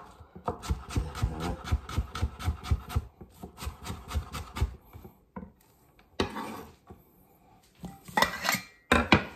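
Kitchen knife chopping red onion on a wooden cutting board, about five quick strokes a second for roughly four seconds. After a pause come a few scraping, rubbing sounds near the end as the onion is wiped off the blade.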